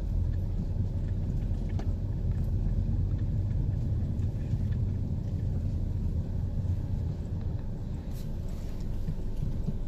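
Steady low rumble inside a Ram Promaster City van in a dust storm: vehicle noise mixed with strong wind buffeting the van.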